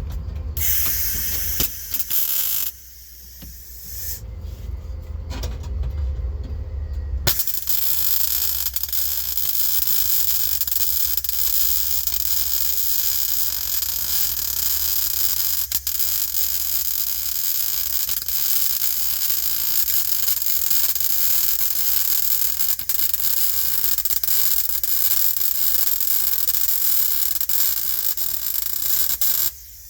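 Welding arc on the sheet-steel floor pan seam. There are two short runs in the first seven seconds, then one long steady run of about twenty seconds that stops just before the end.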